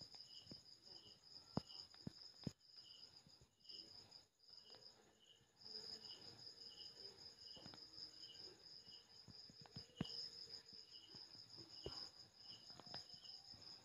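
Crickets chirping faintly: a steady high trill with a lower chirp repeating about twice a second. A few soft clicks come through, the clearest about a second and a half in and again around ten seconds in.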